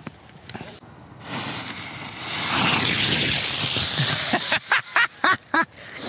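Tropic Butterflies firework 'bird', a small winged ground-lit spinner with a green rise and gold sparks, hissing as its charge burns and it lifts off. The hiss swells about a second in, holds loud for about two seconds, then stops.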